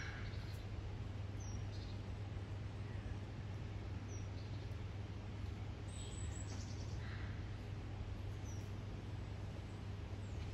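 Scattered short, high bird chirps, each a quick downward slide, with a few other brief calls, over a steady low hum.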